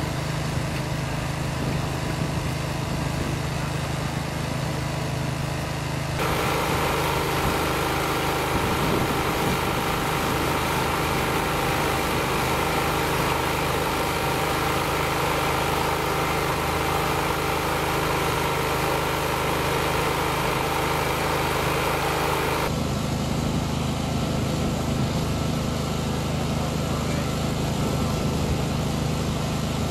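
A steady engine hum from a vehicle idling. The sound changes abruptly about six seconds in and again about seven seconds before the end.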